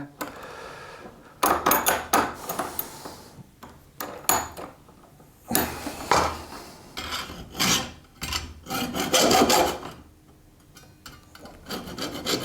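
Hacksaw cutting through the cable's end in several short bursts of rasping strokes with brief pauses between them.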